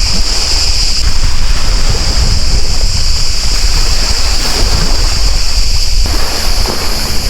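Wind buffeting the microphone over the wash of sea waves, with a steady high-pitched hiss throughout.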